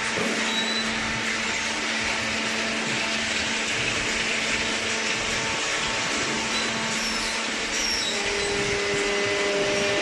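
Machinery of a cardboard baling plant running steadily: an even motor hum and whir with a hiss, holding level throughout, with a higher steady tone joining near the end.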